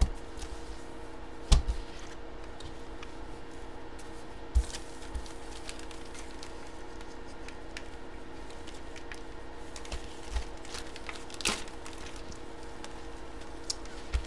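Clear plastic bag crinkling and rustling as a folded jersey inside it is handled and packed, with a few sharp knocks, over a steady low hum.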